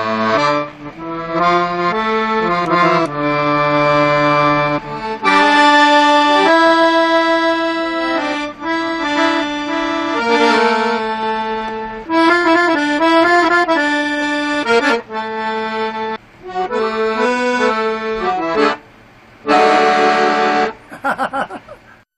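Piano accordion playing a tune of held chords and melody notes, with a brief pause about three-quarters through, then a few quick short chords before it stops.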